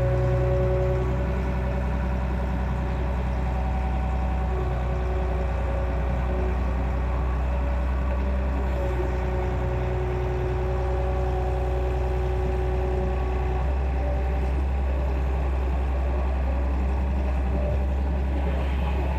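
Excavator engine running steadily: a continuous low drone with a few held tones above it.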